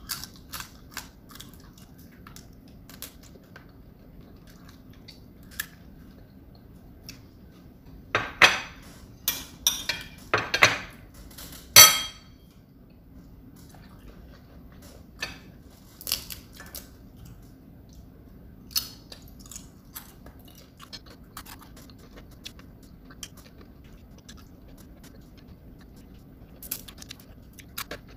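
Someone eating: chewing and crunching crispy fried fish, with a spoon and fingers clicking and scraping on ceramic plates. Short scattered clicks, with the loudest sounds bunched together about eight to twelve seconds in.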